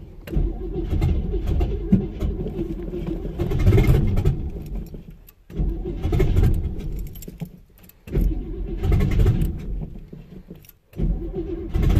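1973 GMC C10's Quadrajet-carbureted engine running just after a cold start without choke, exhaust open at the manifolds, revving up and falling back as the throttle is worked. Three times it sags almost to nothing and then picks up sharply.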